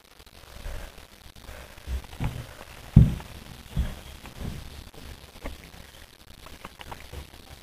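A handful of dull thumps and knocks, the loudest about three seconds in, followed by a few fainter light clicks.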